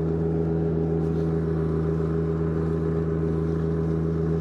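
Turbocharged John Deere 1025R subcompact tractor's three-cylinder diesel running at a steady speed under load while it pushes snow with a front blade.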